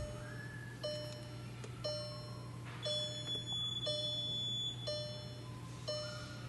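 An electronic chime sounding about once a second, each a short ringing tone, over a steady low hum.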